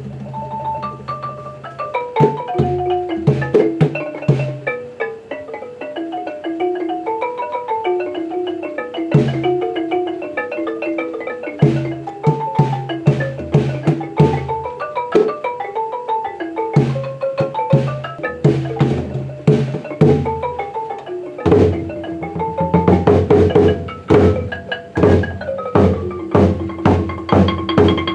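Traditional Cambodian ensemble music: a stepping melody of struck, pitched notes over drum beats, growing fuller and busier about 21 seconds in.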